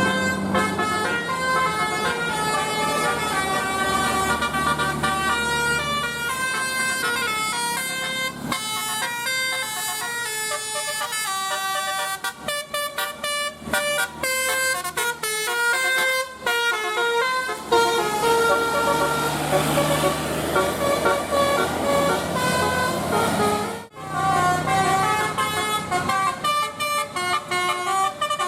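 Indonesian bus 'telolet' multi-tone air horns playing melodies, one note after another, with quick runs of short notes partway through. About 24 seconds in the tune breaks off and another horn melody starts.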